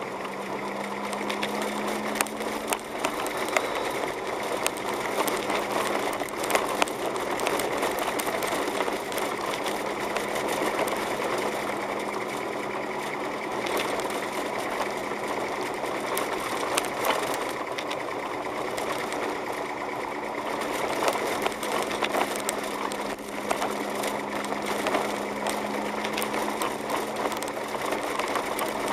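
A car driving on a snow-covered road, heard from inside the cabin: a steady engine hum with frequent irregular clicks and crackles.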